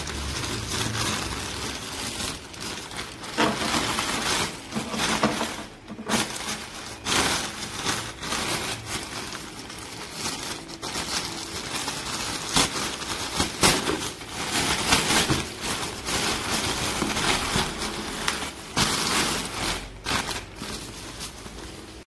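Continuous irregular crackling and crunching handling noise, with frequent sharp clicks and knocks. It cuts off abruptly at the end.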